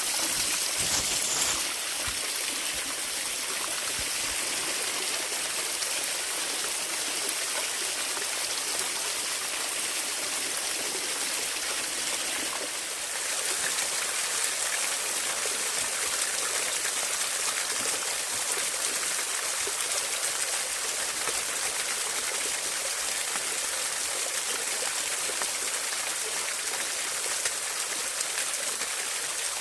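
Water running steadily at a frozen waterfall: an even, unbroken rushing hiss.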